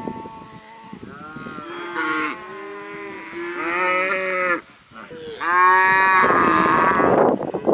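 Cows mooing: two long, drawn-out moos, the second starting about halfway through and louder.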